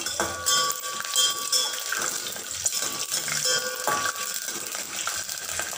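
Peanuts sizzling in hot oil in a stainless steel pot, stirred with a steel ladle that scrapes and clinks against the pot, which rings on.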